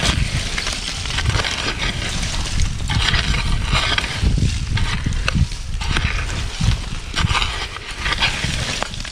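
Irregular crunching and scraping of loose charcoal and earth being worked from a charcoal kiln, over a steady low rumble.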